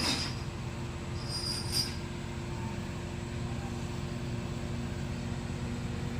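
Heavy machinery's diesel engine running steadily, with two brief high metallic squeals, one right at the start and one a little over a second in, ending in a click near two seconds.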